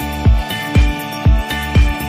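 Background music with a steady, heavy low beat, about two beats a second.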